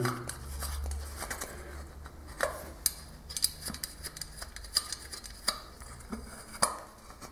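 A brass lamp holder being seated on a glazed stoneware lampshade and its thumb screws turned: a scattering of small metallic clicks and taps, over a low steady hum.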